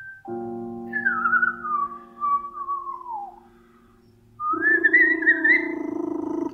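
Whistling that wavers down in pitch over about two seconds, then climbs again a second and a half later. Under it are sustained, organ-like chords that come in a fraction of a second in and swell louder about four and a half seconds in.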